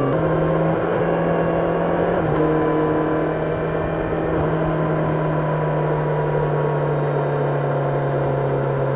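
Kawasaki Ninja 1000SX inline-four motorcycle engine heard on board while riding. The engine holds a steady note, with small shifts in pitch near the start and about two seconds in.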